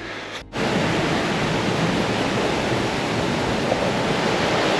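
Steady rush of a small waterfall, coming in suddenly about half a second in.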